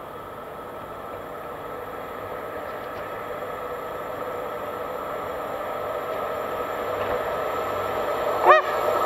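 Electric locomotive of Croatian Railways approaching along the track, its running noise growing steadily louder. About eight and a half seconds in, a single short honk sounds, the loudest moment.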